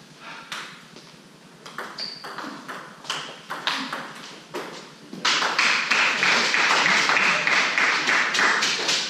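Table tennis ball clicking back and forth between bats and table in a rally, about two hits a second. About five seconds in the point ends and the hall breaks into loud applause for some four seconds.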